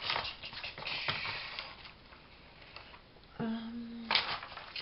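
Dry rustling and light crackle of a hand rummaging through a tray of paper flowers and craft embellishments, then a short hummed "mm" and a sniff near the end.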